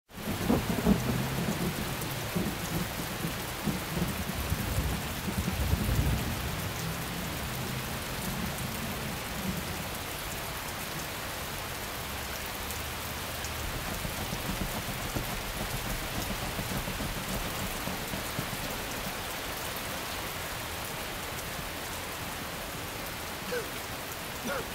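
Steady heavy rain falling, with low rolling thunder over the first several seconds, loudest about a second in and again about six seconds in.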